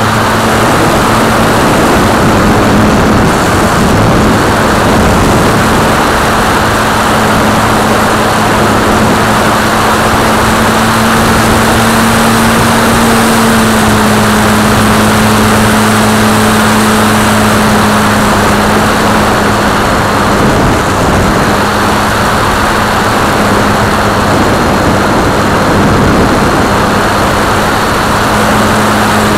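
Multiplex FunCub RC plane's electric motor and propeller running steadily in flight, heard from the plane's own camera: a droning hum that shifts slightly in pitch under heavy wind rush.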